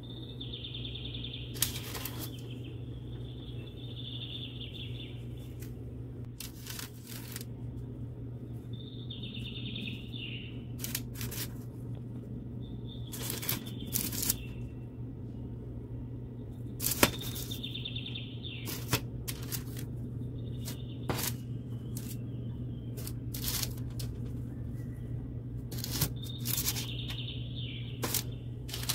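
Parchment paper rustling and crackling, with light taps and clicks, as baked pastries are picked up and shifted about on a metal baking tray. A steady low hum runs underneath, and short high chirps come every few seconds.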